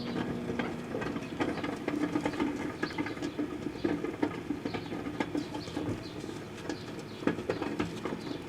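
Proctor-Silex microwave oven running with sugarcane inside: a steady hum with many irregular clicks and crackles over it.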